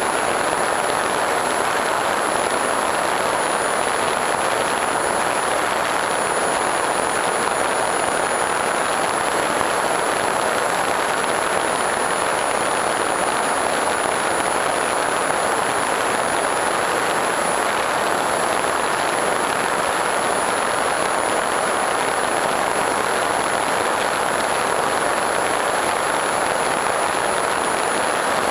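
Steady rush of airflow and propeller noise from an FPV Raptor 1600mm foam RC plane in level cruising flight, picked up by its onboard camera. A thin, steady high whine sits above the rush.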